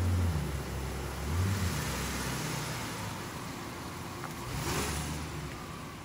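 Infiniti QX4 SUV's engine running at low revs as it backs down a driveway, the hum fading as it moves away. A short rush of noise comes about four and a half seconds in.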